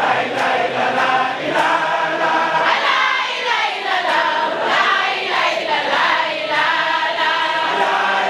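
Large chorus of women singing a devotional chant together, without pause.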